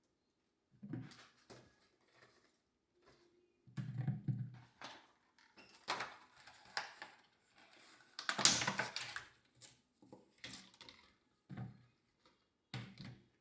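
Irregular knocks and clatters of household items being handled and set down, the loudest about eight and a half seconds in.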